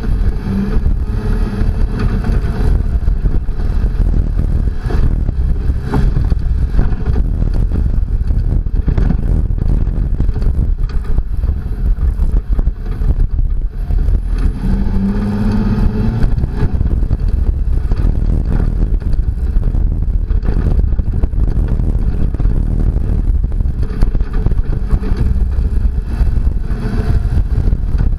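Toyota Tacoma prerunner pickup driven hard along a rough dirt trail: a constant loud rumble of engine, tyres and rattling body, with the engine revving up briefly about halfway through.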